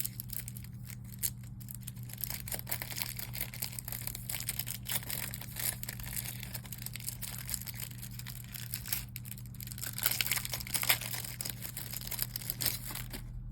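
Plastic packaging or protective film crinkling and crackling in the hands as a replacement phone screen is handled and unwrapped, in quick irregular rustles, over a steady low hum.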